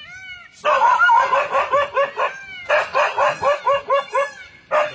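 A dog barking in two rapid volleys of short yelping barks, about six a second, each volley lasting over a second and a half, with one sharper burst near the end.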